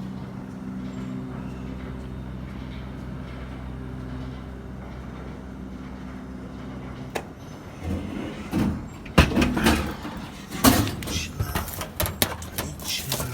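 An arcade prize machine's motor hums steadily for about seven seconds and stops with a click. Then a run of loud knocks and rattles follows, as prizes drop.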